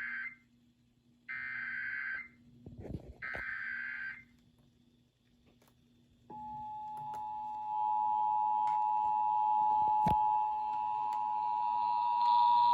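Emergency Alert System tones relayed over FM radio. Three one-second bursts of screechy SAME header data (the first already ending) are followed, after a short pause, by the steady two-tone EAS attention signal from about six seconds in. They announce an Amber Alert (Child Abduction Emergency).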